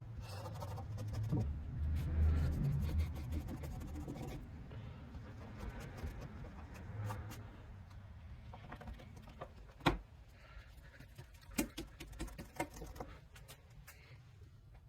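Light rubbing and scraping of a cloth-wrapped block working scratch-repair compound over a truck's painted panel. A low rumble runs through the first few seconds, and scattered light knocks follow, the sharpest about ten seconds in.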